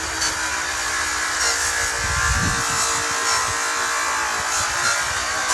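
A handheld power tool running steadily: an even motor hum with a rasping noise over it.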